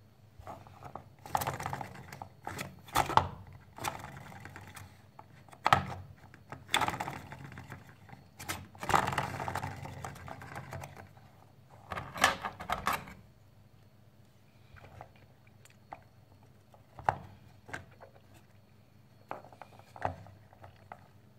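Clicks, knocks and scraping of light wooden craft parts being handled: a popsicle-stick model cart turned in the hands, its bamboo skewer axle rubbing and sliding against the wood. In the quieter last part, a couple of sharp clicks as scissors work at the skewer.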